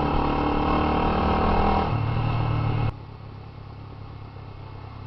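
Honda CB 300's single-cylinder engine running through a Fortuna mini sport exhaust, a steady pitched exhaust note. About three seconds in the sound cuts off abruptly, leaving only a faint low hum.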